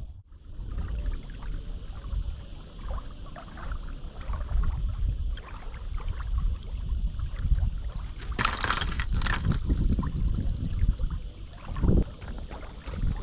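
Wind buffeting the microphone in an uneven low rumble, over a steady high hiss. About eight and a half seconds in there is a brief, louder rustling burst.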